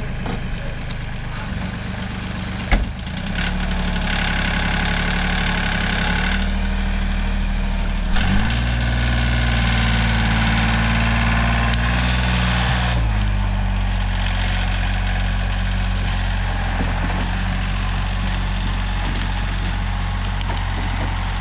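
Bobcat compact tractor's diesel engine working under load as it drags wood on a chain, with wood scraping and crunching through brush. There is a sharp crack about three seconds in. The engine revs up around eight seconds in, holds higher for a few seconds, then settles back to a steady run.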